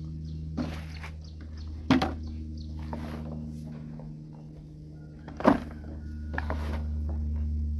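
Dorper sheep feeding at a trough: rustling and small clicks of eating, with two loud knocks, about two seconds and five and a half seconds in, over a steady low hum.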